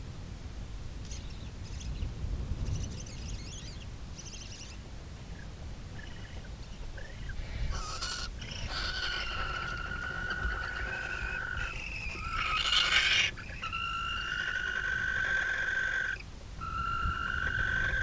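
Barn owls calling in the nest box. From about eight seconds in comes a run of drawn-out, steady-pitched calls of a second or two each, with a short harsh burst about thirteen seconds in.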